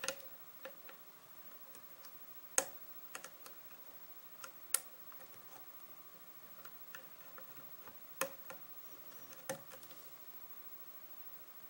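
Lock pick and tension wrench working the pins of a 6-pin Sargent lock cylinder: scattered small metallic clicks and ticks at an uneven pace, four of them sharper and louder.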